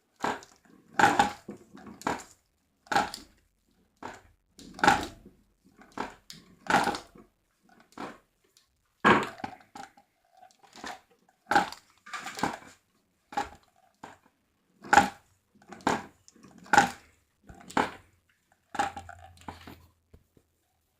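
A cup bell struck over and over, about twenty strokes at roughly one a second, uneven in strength. Each stroke is short with little ring after it, and the strokes stop near the end.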